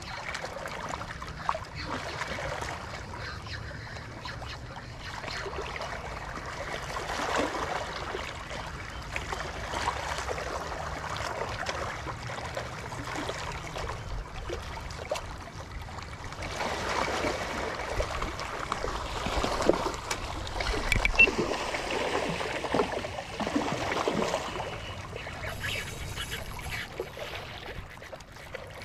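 Water splashing and trickling, with irregular splashy crackles that grow louder in the second half.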